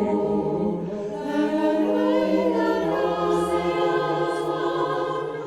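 Choir singing long held chords in several voice parts, the notes shifting slowly; the lowest note stops about four seconds in.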